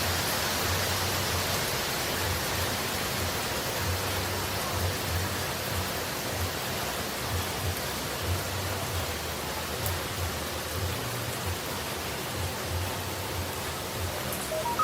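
Continuous, steady rushing of falling water, an even hiss with a faint low rumble beneath it. A few short electronic beeps come right at the end.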